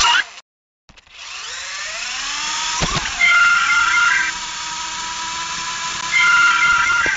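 Parrot Jumping Sumo robot's small electric drive motors whining as they spin up, the pitch rising for about two seconds and then holding steady, growing louder twice. A sharp click comes near the three-second mark and again near the end, and the sound drops out for about half a second right at the start.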